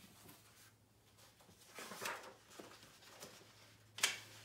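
Paper pages of a picture book being handled and turned: soft rustles about two seconds in, and a sharp page flap near the end.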